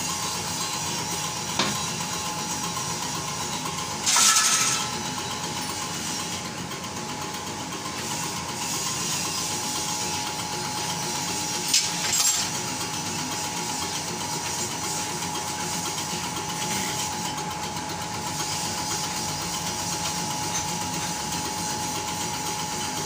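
Diesel injection pump test bench running with a rotary distributor injection pump on test: a steady whine over an even hiss. There are short louder hisses about four and about twelve seconds in.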